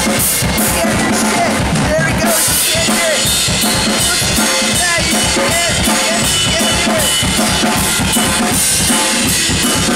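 Drum kit playing a loud, fast, busy beat, with kick drum and snare hits in a steady, even rhythm under cymbal wash.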